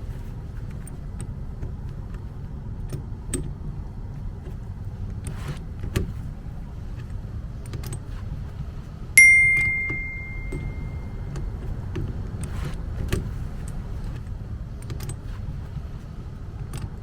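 Scattered small clicks and knocks of handled metal objects, and one sharp metallic ding about nine seconds in that rings out over about two seconds, over a steady low rumble.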